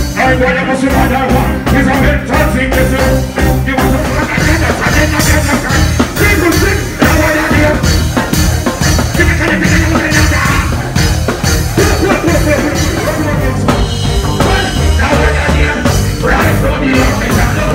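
Live reggae music played loud through a concert PA: a steady, heavy bass line and drums, with a vocalist singing over them.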